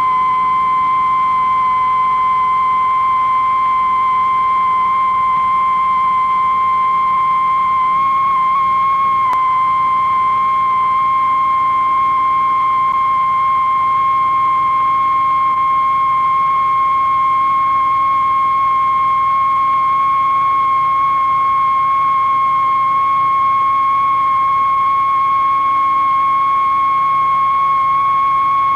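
A continuous electronic sine-wave tone, high-pitched and steady, rising very slowly in pitch. It wavers briefly about eight to nine seconds in.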